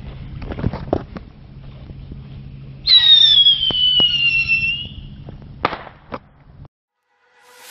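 Black Cat Neon Master Missiles in flight, hissing and crackling. About three seconds in, a loud whistle falls steadily in pitch over two seconds, followed by two sharp pops near the end.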